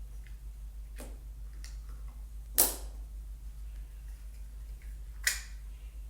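Three sharp clicks of hard parts or a tool being handled, the loudest about two and a half seconds in, over a steady low electrical hum.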